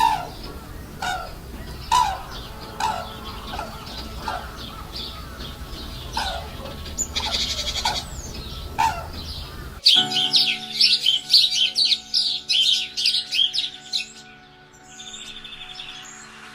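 Wild birds calling: for about ten seconds a bird repeats a short falling call note roughly once a second, then the sound changes abruptly to a fast run of high chirps that thins out near the end.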